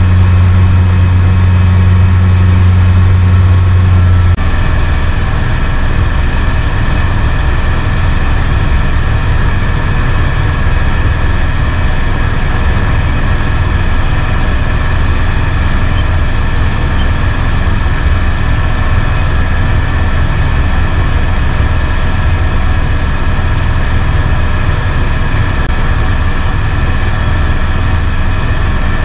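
Pleasure boat's outboard motor running steadily under way, heard from aboard. About four seconds in, the even low hum turns rougher and less steady.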